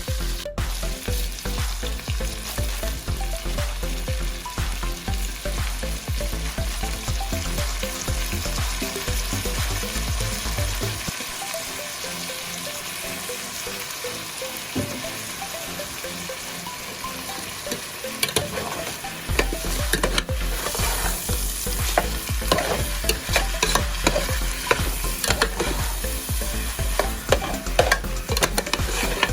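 Food frying and sizzling in a hot pan with steady crackling, stirred now and then.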